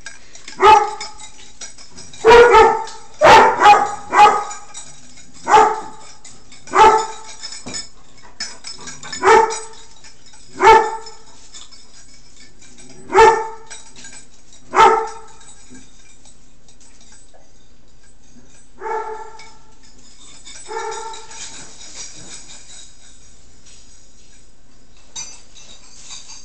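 A dog barking: about a dozen single sharp barks, spaced a second or so apart, then two fainter barks some seconds later.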